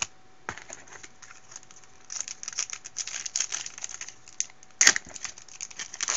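Foil wrapper of a Bowman Platinum baseball card pack crinkling and tearing as it is opened by hand. The crinkling starts about two seconds in and runs in quick crackles, with one sharp snap near the end.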